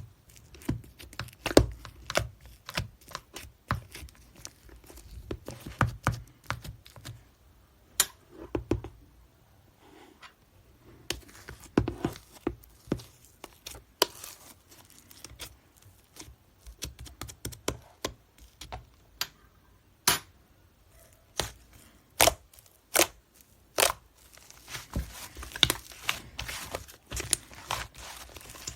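Irregular taps, clicks and crinkling, like objects being handled and crumpled.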